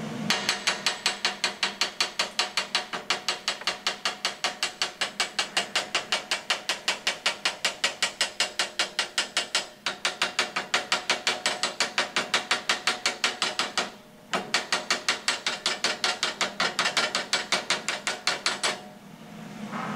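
Slag being knocked off a fresh 7018 stick-weld bead on steel angle with a chipping hammer and scrubbed with a steel wire brush: quick, steady metal-on-metal strokes, about five a second, with two short pauses.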